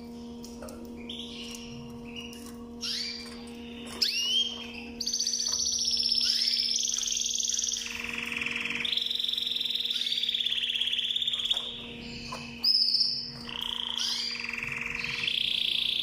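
Canary singing: a few short chirps, then long rapid trills (rolls), each held for several seconds and switching pitch, broken by a short high whistle.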